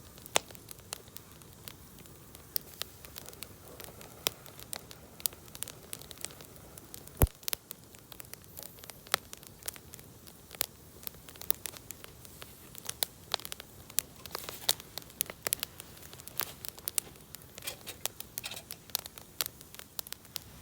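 Wood campfire crackling, with many small irregular pops and snaps and one sharp, much louder pop about a third of the way through.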